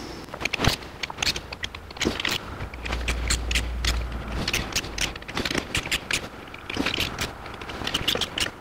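Torque wrench ratcheting in a series of sharp, irregular clicks as the intake manifold bolts on a small-block Chevy V8 are tightened to torque.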